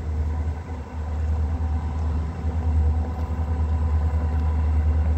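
Diesel locomotive engines running steadily out of sight, growing louder over the first second, with a deep rumble, partly wind buffeting the microphone.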